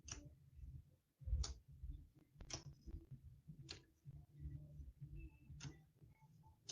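Trading cards being flipped through by hand: five light clicks or snaps about a second apart, with faint handling noise between them.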